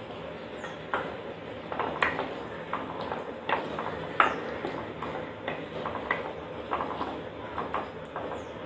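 Wooden spoon stirring chickpea gravy in a clay pot, knocking and scraping against the clay in irregular clicks, roughly one or two a second.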